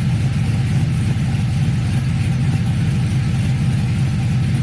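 A Chevy Silverado's cammed LS V8 with long-tube headers and a Flowmaster exhaust, idling steadily.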